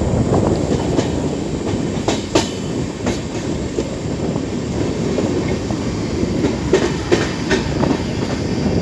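Indian Railways passenger express coaches running along the track, heard from an open coach door. There is a steady rumble of wheels on rail, with a few sharp clacks as the wheels cross rail joints about two seconds in and again near the end.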